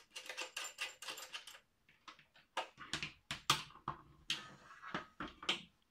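Irregular plastic clicks and knocks as a Hakko 936-clone soldering station is handled: the soldering iron's plug is pulled from the station's front socket and the iron and cable are set aside.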